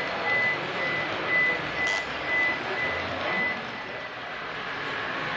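Electronic beeping, a steady high tone about twice a second, over the general noise of an exhibition hall. The beeping fades out a little past halfway.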